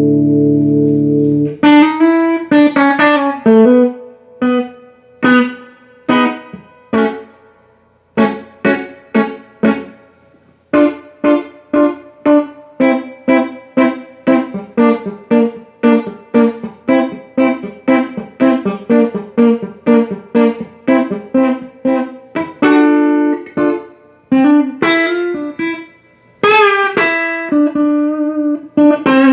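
Electric guitar played through a Fender Deluxe 112 Plus transistor combo amp, being sound-tested after servicing. A held chord rings and is cut off about a second and a half in, followed by picked single notes and broken chords in a steady rhythm.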